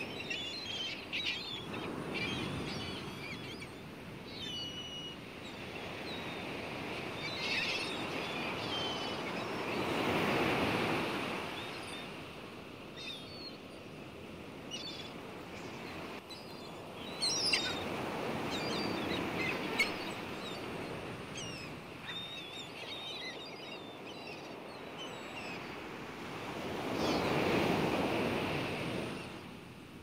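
Small waves washing up the beach and drawing back, swelling about every eight or nine seconds, with seagulls calling in short, high cries over the water.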